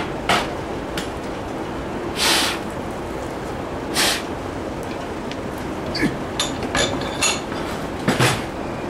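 Metal clinks and knocks as a tractor PTO shaft yoke is handled in a steel bench vise and lifted out, with a cluster of sharp clicks near the end. Under them runs a steady hiss, with a few short rushing bursts of noise.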